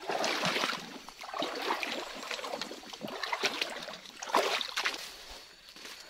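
Footsteps wading through a shallow stream, with irregular splashing and sloshing of water; the loudest splashes come near the start and about four and a half seconds in, and it quietens near the end.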